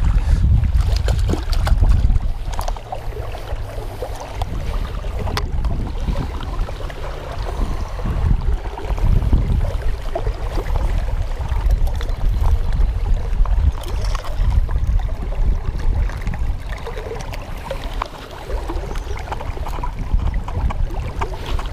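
River water rushing and sloshing close to the microphone, with wind buffeting it as a low, uneven rumble, and a few sharp knocks of handling.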